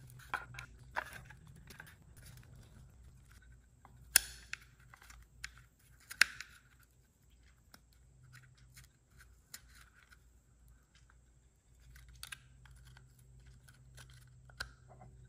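Thin screwdriver prying and scraping at the black plastic parts of a BMW E46 side-mirror actuator, working to release the motor: scattered small clicks and scrapes, with two sharper clicks about four and six seconds in.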